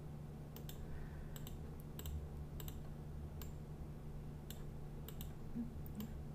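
Irregular clicks and taps of a computer mouse and keyboard, about fifteen scattered through, over a steady low hum.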